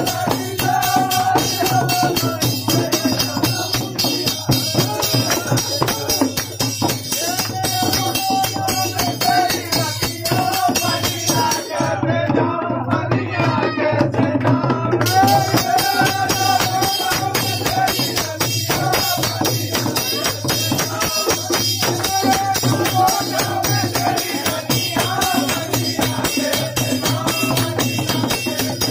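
Dehati folk song sung over a dholak and jingling percussion in a fast dance rhythm. The high jingling drops out for a few seconds about midway, then comes back.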